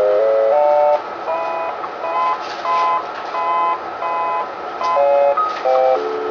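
Phacoemulsification machine's electronic feedback tones over a steady high tone. The pitch steps upward, then pulses in short repeated beeps at the top and drops back to a lower held tone about six seconds in, following the aspiration vacuum as it builds at the tip.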